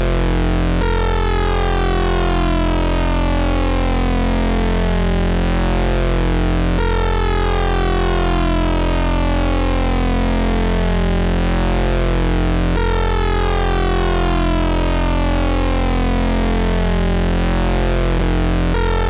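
Eurorack modular synthesizer patch built around a Rossum Electro-Music Trident complex oscillator, holding one low note, F, as a continuous drone. Its timbre sweeps through a falling run of overtones that restarts about every six seconds.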